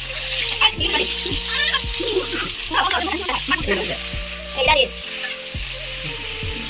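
A metal spatula stirring and scraping diced vegetables in a steel kadai, the food sizzling as it fries in oil. Background music with steady low notes plays underneath.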